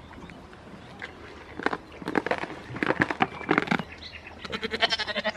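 A goat bleating near the end, after a couple of seconds of short knocks and scuffles close by.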